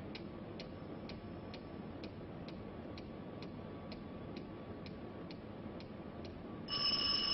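Wall clock ticking steadily, about two ticks a second. Near the end a telephone bell starts ringing, louder than the ticking.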